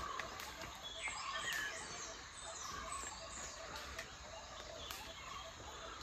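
Several birds chirping and calling, many short notes and quick pitch glides, over a faint steady background hiss.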